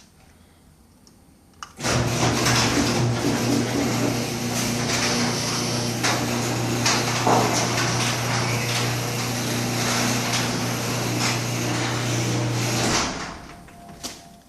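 Electric garage door opener running while a sectional garage door travels on its tracks: a steady motor hum with rattling, starting about two seconds in and stopping abruptly after about eleven seconds, then a single click.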